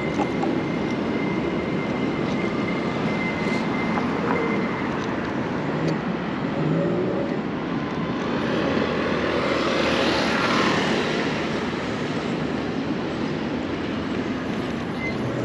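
Steady wind and street-traffic noise heard from an electric bike riding through city streets, with a louder swell about ten seconds in.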